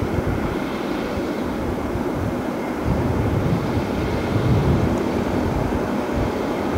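Heavy diesel construction machinery running, a deep steady engine rumble with a faint steady whine over it, swelling a little louder about three seconds in.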